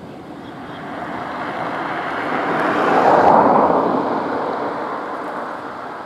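A vehicle passing by: a steady noise that swells for about three seconds, peaks near the middle, then fades away.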